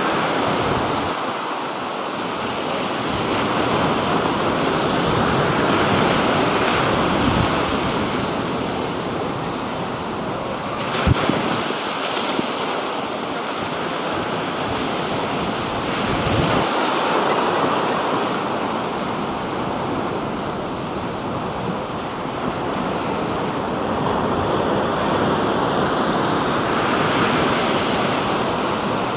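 Black Sea waves washing onto the shore, the surf swelling and easing every few seconds, with wind buffeting the microphone. A brief knock sounds about eleven seconds in.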